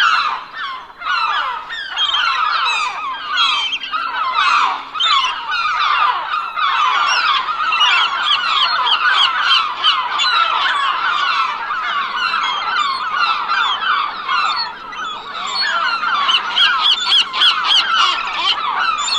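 A large flock of gulls calling all at once: many short, overlapping squawks and cries with no pause between them.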